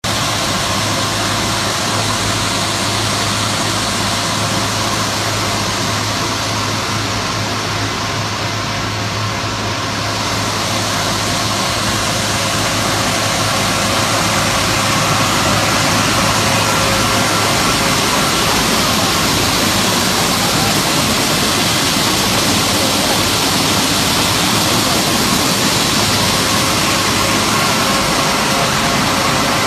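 Richiger R950MX grain bagger and its truck unloader auger running steadily, bagging high-moisture corn: a continuous machinery drone with a low hum and a few steady tones over a rushing noise. It grows a little louder about halfway through.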